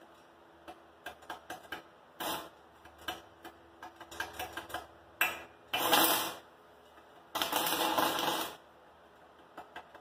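Stick welding arc from a 36-volt battery arc welder: scattered sharp ticks and crackles as the electrode strikes and sputters, then two runs of steady arc crackle, the second a little over a second long, laid over old slag.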